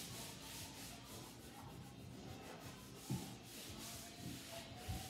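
Wiping down a wooden table top: faint, repeated rubbing strokes.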